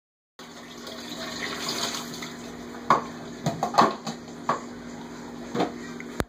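Water from a kitchen faucet running and splashing into a stainless steel sink, with dishes knocking and clattering in the sink five or six times from about three seconds in.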